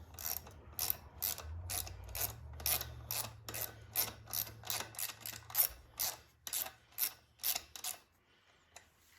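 Ratchet wrench clicking steadily, a little over two clicks a second, as 8 mm bolts on a small OHV engine's valve cover are worked loose. The clicking stops about 8 seconds in.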